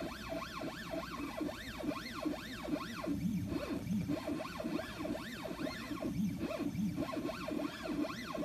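Stepper motors of a MillRight M3 desktop CNC machine whining in a string of rising-and-falling pitch sweeps, roughly two a second, as the gantry speeds up and slows down through short test moves.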